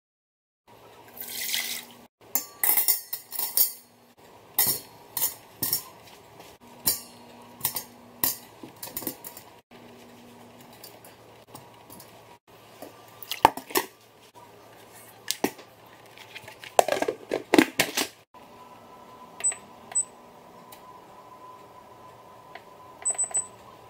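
Corn cobs, eggs and potatoes knocking and clattering against a stainless steel Instant Pot inner pot as they are loaded in. Near the end, the Instant Pot control panel beeps with short high beeps, twice and then a quick few more, as its buttons are pressed to set the pressure-cook time.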